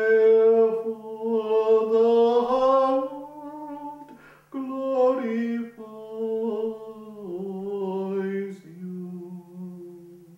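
A monk chanting solo and unaccompanied, holding long notes that step to a new pitch every few seconds. A faint steady hum sits underneath.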